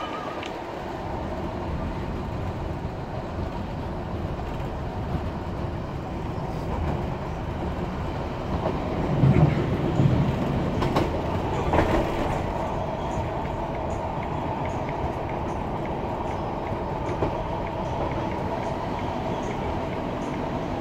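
Inside a Class 156 Super Sprinter diesel multiple unit on the move: the steady drone of its underfloor diesel engine and transmission, with the wheels rumbling on the track. A few louder clanks come about halfway through.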